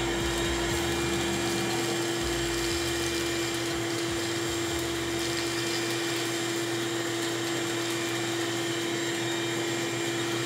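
RIDGID wet/dry shop vac running through a Dust Deputy cyclone separator, sucking sawdust off a concrete floor through its hose: a steady motor whine over rushing air.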